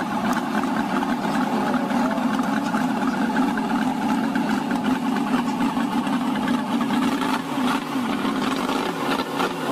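Miniature scale-model spark-ignition V8 engine running steadily, a fast even patter of firing.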